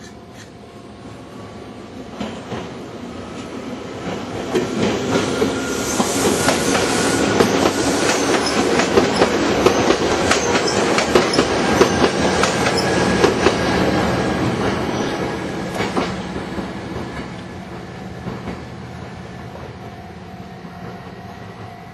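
A train passing by: it grows louder, its wheels clicking over the rail joints at its loudest, then fades away, with a faint squeal from the wheels.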